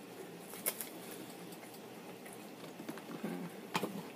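Faint chewing of a mouthful of bean and cheese burrito, with a few sharp wet mouth clicks and a brief closed-mouth hum a little after three seconds in.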